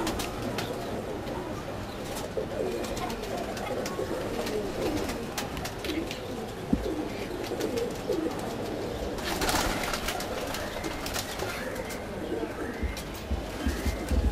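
Domestic pigeons cooing, several overlapping coos, with scattered light clicks.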